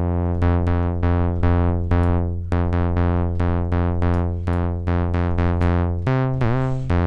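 Ableton Wavetable drone bass synth repeating a low note about twice a second. Each note starts bright and quickly dulls, the plucky transient made by the amp envelope sweeping the wavetable from triangle toward sawtooth. About six seconds in the pitch changes, with a short glide dipping down and back.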